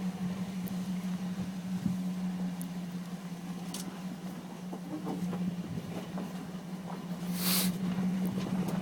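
A Chevy Silverado pickup's engine runs with a steady low drone as the truck crawls slowly over sharp rocks, with scattered small crunches and clicks of the tyres on rock. A brief hiss comes near the end.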